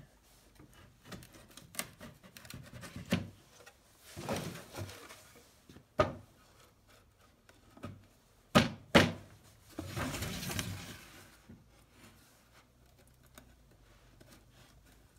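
Spruce boards of a box-jointed beehive body being fitted together by hand: a few sharp wooden knocks, the loudest a close pair about nine seconds in, with scraping and rustling between them.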